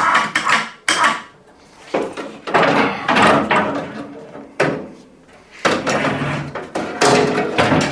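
Overhead hoist lifting a washing machine drum up out of its cabinet: mechanical clatter and metal scraping in irregular bursts.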